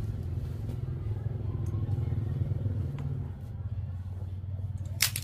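A small engine running with a steady low rumble, and one sharp click near the end.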